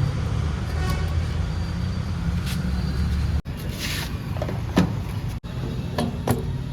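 Heavy diesel earthmoving machinery running steadily with a deep rumble, with a few sharp metallic clanks in the second half.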